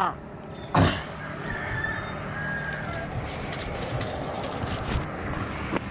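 Rooster crowing, with a loud call about a second in and a shorter one near the end, over a low steady hum.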